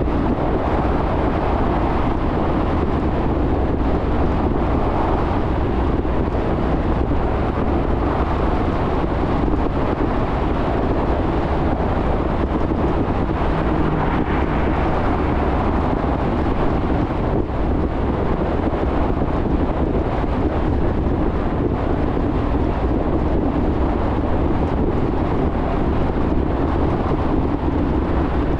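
Steady road noise of a car driving: tyre roar mixed with wind rush, even throughout.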